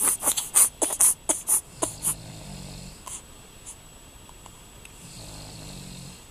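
Snoring from a sleeping man and baby: two low, drawn-out snores about three seconds apart. Before them, in the first two seconds, comes a quick run of about ten short, sharp noises, the loudest sounds here.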